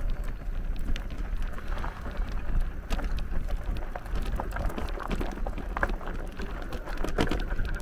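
E-bike tyres crunching and crackling over a rutted sandy dirt track, with wind rumbling on the microphone and scattered clicks and rattles from the bumps.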